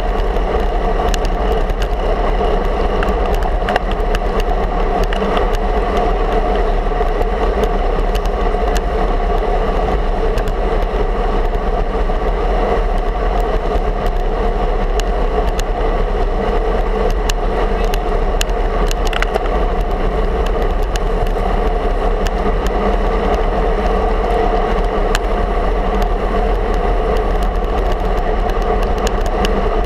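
Steady wind rush and road rumble from a road bike rolling at speed, carried through a handlebar-mounted camera, with scattered small knocks as the tyres hit cracks and bumps in the asphalt.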